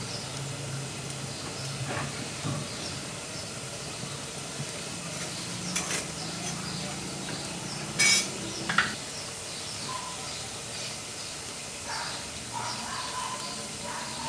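Wood fire crackling in a wood-burning cookstove: a steady hiss with frequent small pops and a few louder cracks, the loudest about eight seconds in.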